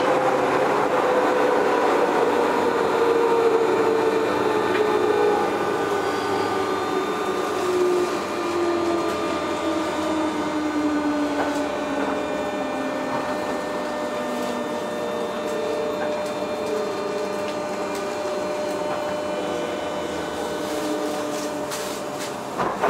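A JR 201-series thyristor-chopper electric train heard from inside the car as it brakes into a station. Its motor whine falls steadily in pitch as the train slows, over the rumble of wheels on rail, and the sound grows quieter toward a stop, with a few knocks near the end.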